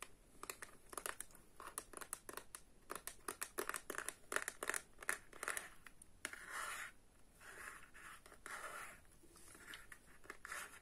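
Close-miked fingertips tapping and scratching a small handheld object as an ASMR trigger. Quick light taps come first, then longer scratchy rubbing strokes from about four seconds in.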